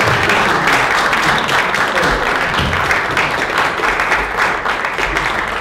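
Audience applauding steadily in a large room: many hands clapping at once.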